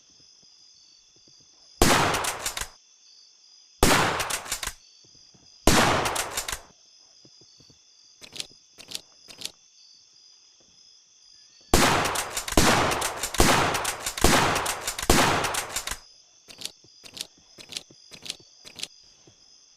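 Mosin-Nagant bolt-action rifle shots: three single shots about two seconds apart, each ringing out briefly, then a few lighter clicks, then a dense run of overlapping shots lasting about four seconds, then more light clicks. A steady high-pitched buzz runs underneath.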